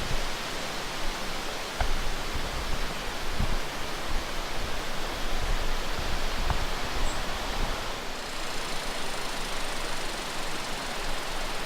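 Steady outdoor background noise: an even hiss with a few faint clicks and knocks.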